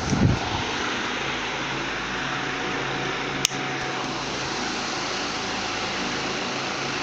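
Venti-Delta New Delta Light ceiling fan running at full speed, a steady rush of air with a faint hum. Its speed switch is faulty, so it only runs at maximum. There is a low thump right at the start and a single sharp click about halfway through.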